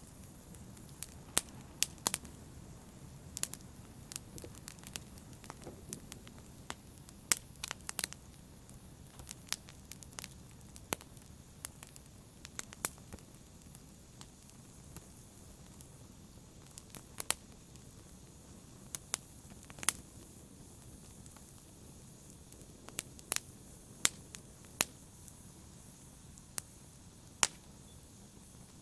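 Wood fire burning in a fireplace: a steady low rumble of flames with irregular sharp crackles and pops, a few of them much louder than the rest.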